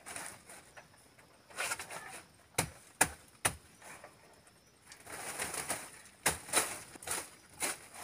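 Dry forest litter rustling, with sharp snaps and knocks in two short clusters, as brush is cleared by hand and a woven bamboo trap is handled on the ground. A faint high insect drone runs underneath.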